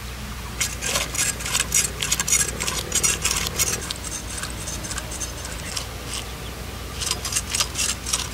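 A large mrigal carp's scales being scraped off against the edge of a bonti, a fixed curved kitchen blade, in quick rasping strokes. There is one run of strokes starting about half a second in and lasting some three seconds, and a second shorter run near the end.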